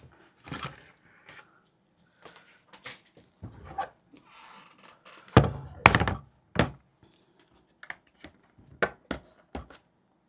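Thunks and clicks of the Starlink Mini kit being handled, set down and cabled up. The loudest knocks come about five and a half to six seconds in, with lighter clicks after.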